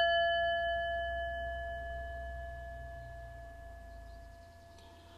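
A struck metal bell ringing with a clear tone and several higher overtones, fading slowly away after the strike.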